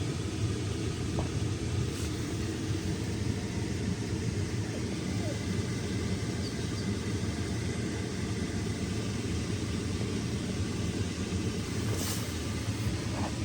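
A steady low rumble, with a faint sharp click about two seconds in and another near the end.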